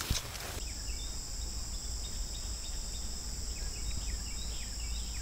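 Steady high-pitched insect chorus, with short bird chirps scattered through it. A brief rustle sounds in the first half second.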